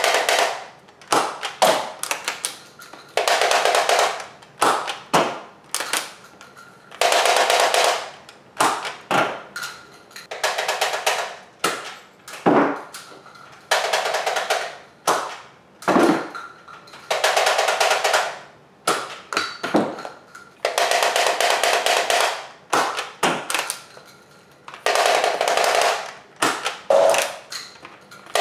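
BoomCo Burstwave pump-action air blaster being pumped and fired over and over: a rush of air about every three to four seconds, with shorter strokes and plastic clacks in between.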